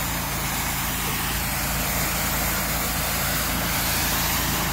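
Pressure washer running steadily, its jet spraying out as a fine mist with an even hiss over the low, steady hum of the machine's motor.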